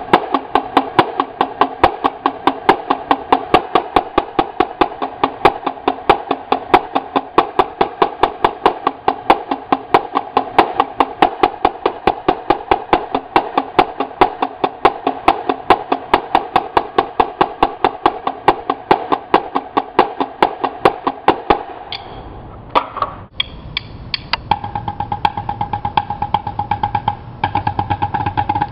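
Two marching snare drums played in unison: a fast, steady run of crisp stick strokes on tight, ringing heads. The playing breaks off briefly near the end, then starts again.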